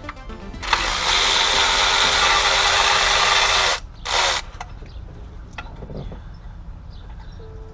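Hand-held electric power tool running hard for about three seconds, then a short second burst, driving a fastener while the engine is being taken apart.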